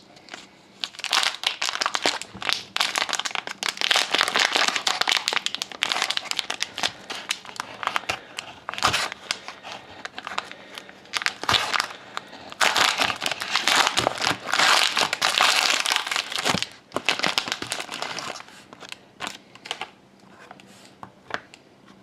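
Wrapper of a Panini Prime hockey card pack being torn open and the cards handled, a run of irregular crinkling and crackling that dies down near the end.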